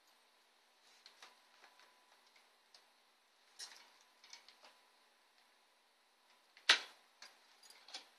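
Scattered small clicks and taps of hands working parts inside an open computer case, with one sharp click about two-thirds of the way in.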